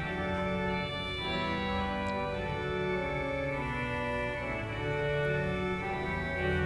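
Church organ playing slow, sustained chords, the notes shifting about once a second.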